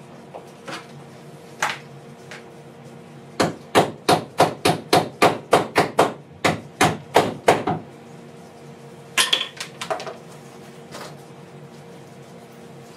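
Hammer blows on the sheet-steel body of a VW Iltis during bodywork: a few single knocks, then a run of about a dozen quick strikes at roughly three a second, then a short flurry near the end.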